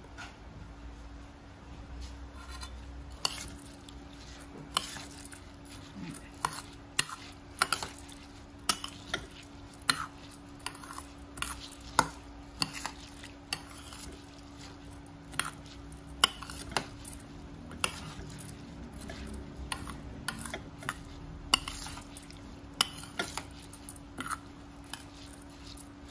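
Metal spoon stirring soaked glutinous rice in a metal bowl to mix in the seasoning. The spoon clinks sharply against the bowl at uneven intervals, about once or twice a second.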